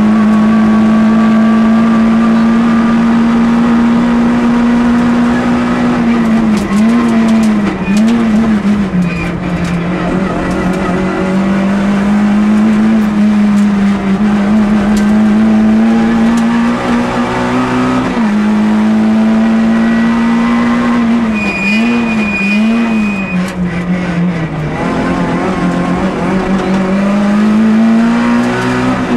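Citroën Saxo rally car's four-cylinder engine running hard at steady high revs, heard from inside the cabin. The revs waver and drop twice, about seven seconds in and about twenty-two seconds in, then pick up and hold steady again.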